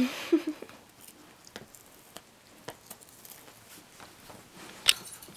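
Siberian husky gnawing at a cardboard hang tag on a plush toy: scattered soft clicks and crackles of teeth on card, with a sharper crackle near the end.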